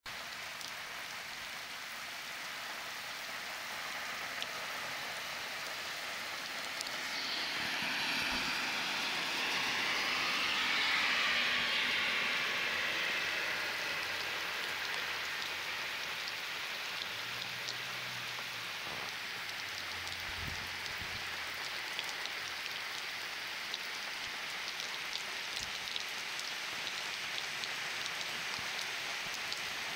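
Heavy rain falling, a steady hiss peppered with the small ticks of individual drops. A rushing swell grows louder about a quarter of the way in, then fades back to the steady rain.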